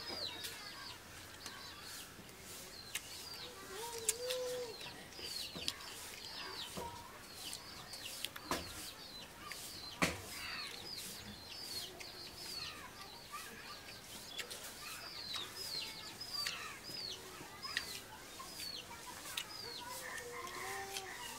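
Chickens clucking now and then, over a steady run of short, high, falling bird chirps. A few sharp clicks cut in, the loudest about ten seconds in.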